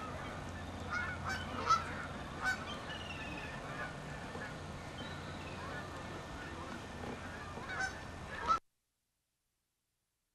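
Geese honking repeatedly over a steady low hum. The sound cuts off abruptly about two seconds before the end, leaving dead silence.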